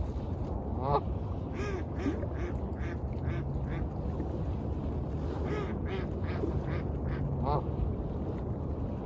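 A duck quacking in two quick runs of short calls, one starting about a second in and one past the middle, over a steady low wash of waves.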